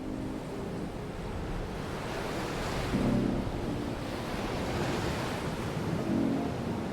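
Calm ocean waves washing ashore, their rush swelling and easing in slow surges. Soft music chords come in faintly underneath, about three seconds in and again near the end.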